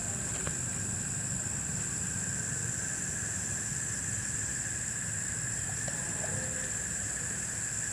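Steady chorus of night insects, a high continuous trilling drone, over a low rumbling background noise.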